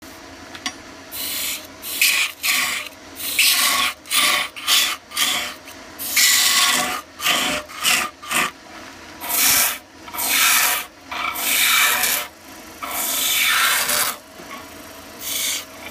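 Hand turning tool cutting into a wooden blank spinning on a wood lathe: a dozen or more separate cuts, each a scraping hiss of shavings lasting from a fraction of a second to about a second and a half, with short pauses between.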